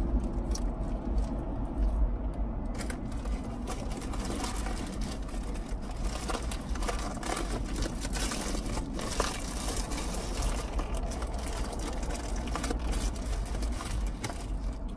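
Close-up eating sounds: chewing and mouth smacking on a burger, with many short wet clicks, over a steady low hum inside a car.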